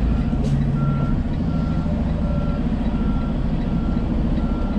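Truck's backup alarm beeping steadily, about once every 0.7 seconds, over the low running of the diesel engine, heard from inside the cab as the tractor-trailer reverses.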